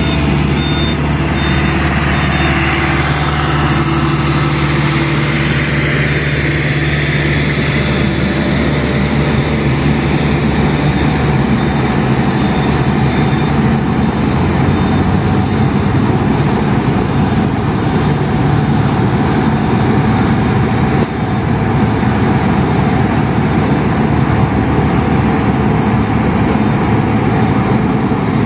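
Heavy road-paving machinery running steadily: the diesel engines of a tracked asphalt paver, a dump truck and a tandem roller, working together. An intermittent high-pitched beeping alarm sounds over the engines for the first few seconds.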